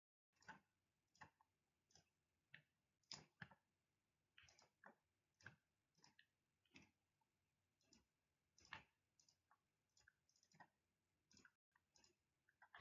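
Faint computer mouse clicks, short and irregular, as keys on a calculator emulator are clicked one after another.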